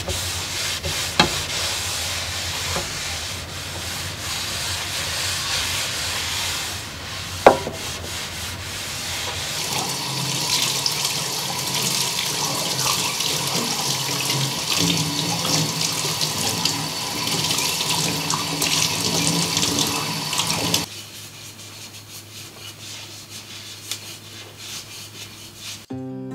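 Kitchen tap running into a sink, the stream splashing over hands rinsed beneath it, with one sharp knock about a third of the way in. The water stops abruptly well before the end, leaving a quieter stretch.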